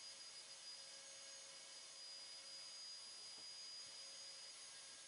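Near silence: a faint steady hiss with a few thin high steady tones, and no sanding strokes heard.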